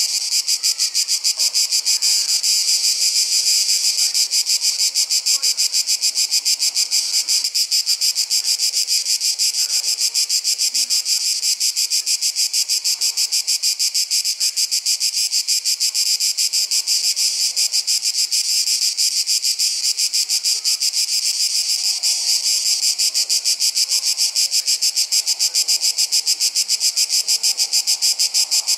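Loud, high-pitched chorus of insects shrilling without a break in rapid, even pulses.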